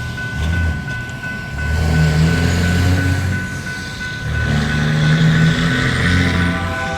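GE AC4400CWM diesel locomotive passing, its engine running with a heavy low rumble that swells and eases. Near the end its air horn starts to sound, a multi-note chord.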